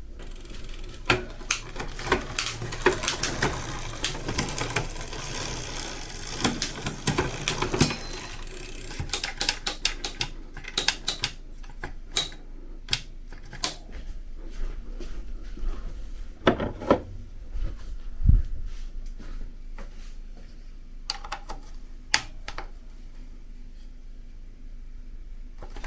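Rapid metallic clicking and clattering of hand tools and bicycle parts during repair work, dense for the first several seconds and then coming in scattered single clicks, with one dull thud near the middle.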